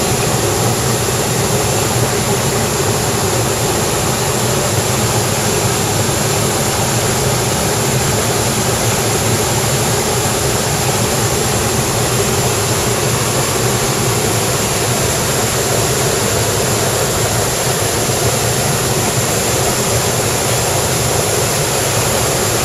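Mountain stream water rushing, a loud, steady, unbroken roar of flowing water.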